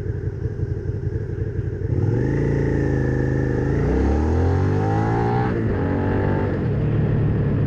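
2017 Suzuki SV650's V-twin engine, fitted with a Scorpion carbon-fibre slip-on exhaust, idling and then pulling away about two seconds in. The revs climb, drop back at an upshift, climb again and drop at a second shift, then settle into a steady cruise.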